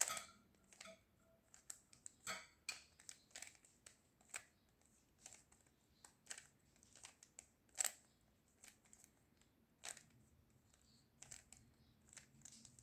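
3x3 Rubik's cube being scrambled by hand: quiet, irregular plastic clicks and clacks as its layers are turned.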